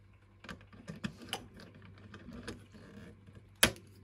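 Key clicking and rattling in a chest freezer's lid lock, a run of small irregular clicks with one louder, sharper click near the end, as the lid is locked.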